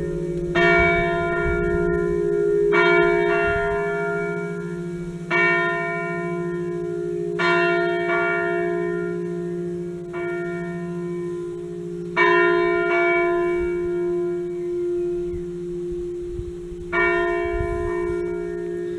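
Church bells from a five-bell set cast by Achille Mazzola in 1951 and tuned in a slightly flat E-flat, struck by hand while hanging at rest: single strokes about every two seconds, sometimes two close together, with a longer gap before the last. Each stroke rings on under a steady low hum from the bells already sounding.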